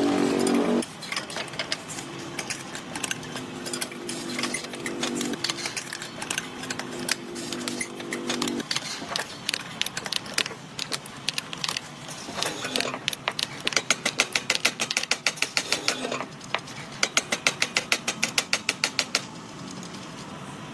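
Workshop mechanical noises: a steady hum for several seconds early on, then runs of rapid clicking and clatter.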